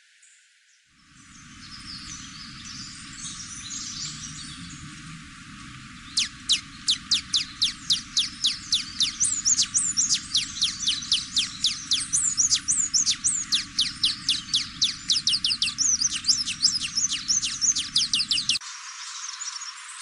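Wine-throated hummingbird singing: faint squeaky twittering at first, then from about six seconds a fast run of high, downward-sweeping notes, about three a second, mixed with squeaky twitters, stopping suddenly near the end.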